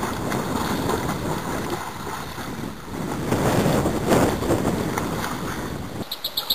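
Wind buffeting the microphone over rushing river water, a steady noise that swells from about three seconds in.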